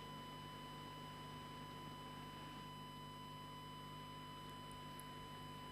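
Steady electrical hum and hiss with a thin steady high tone, no speech: open-line noise of a live TV broadcast feed while the reporter waits on air.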